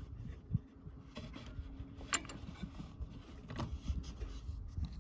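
A few scattered light clicks and knocks from handling, over a low background rumble.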